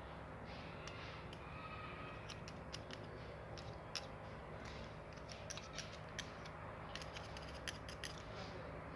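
Irregular sharp metallic clicks over a steady low mechanical hum, most of them from about two seconds in until near the end.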